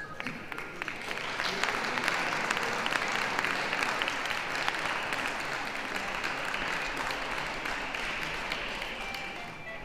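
Audience applauding, swelling about a second in and dying away near the end.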